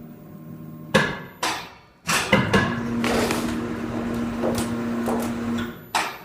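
Sheet metal being worked into roof flashing: two sharp clanks, then about four seconds of a machine running with a steady hum and rattle, and one more clank near the end.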